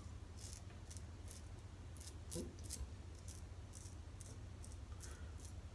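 Merkur Futur adjustable safety razor with a fresh Feather blade scraping through lathered stubble on the neck, faint, in short quick strokes a few times a second.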